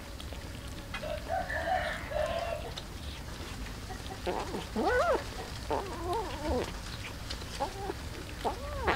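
A handful of short animal calls, each rising and falling in pitch, from about four seconds in, over faint scattered clicks and a steady low hum.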